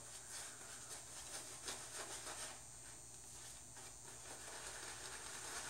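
Boar-bristle shaving brush faintly swishing and rubbing shaving-soap lather over a bearded face, in a series of soft irregular strokes: face lathering.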